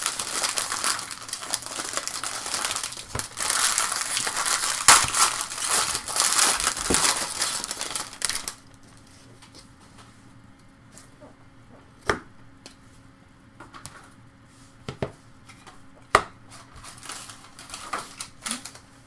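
Foil wrapper of a baseball card pack being torn open and crumpled in the hands, a dense crinkling for the first eight seconds or so. After that it goes quiet apart from a few sharp clicks and light rustling as the cards are handled on the mat.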